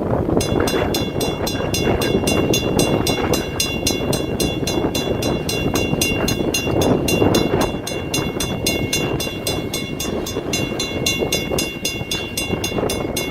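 A train led by 2-6-0 steam locomotive #89 rumbling past, with wind noise. A bell rings in rapid, even strokes starting about half a second in.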